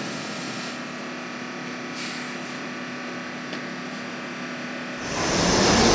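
NYC Subway R68A car standing at the platform with its doors open, its air-conditioning giving a steady hum with a faint tone and a couple of light clicks. About five seconds in, the sound jumps abruptly to the much louder rumble of a subway train running along the track.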